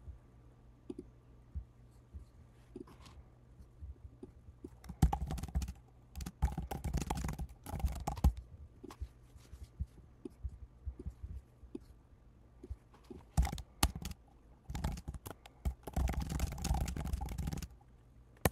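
Typing on a computer keyboard in two bursts, one about five seconds in and a longer one from about thirteen seconds in, with scattered single key or mouse clicks between.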